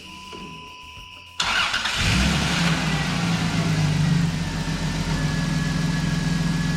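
A 1997 Dodge Intrepid's 3.3-litre V6 starts about a second and a half in, catches quickly and settles into a steady idle. It is the first run after an oil change, to circulate the new oil before the level is checked.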